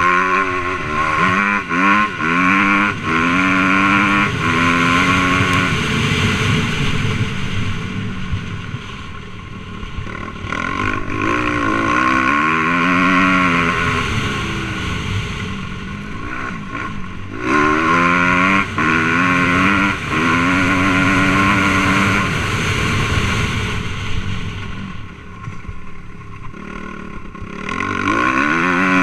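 Suzuki RM-Z250 four-stroke single-cylinder motocross bike engine accelerating hard again and again, its pitch climbing and breaking at each gearshift, then backing off a few times before pulling again. It is heard from the rider's helmet.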